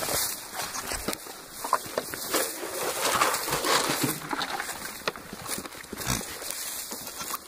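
Dairy goats jostling close around, rustling and scuffing through dry straw, with a few sharp knocks.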